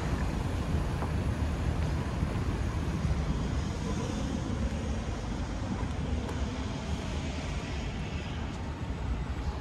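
Steady low rumble of road traffic, even throughout with no single event standing out.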